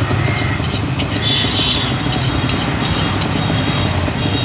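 Steady din of traffic with an engine running, and a quick run of sharp scrapes and clicks about a second in.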